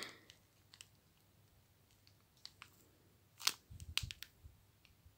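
Faint ticks and rustles of a small clear plastic packet being handled, with a short cluster of crinkles and soft bumps about three and a half seconds in.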